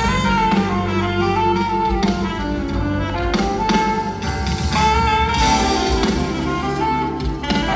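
Band music in an instrumental passage of a pop song: a lead melody over bass and a steady rhythm, with no singing.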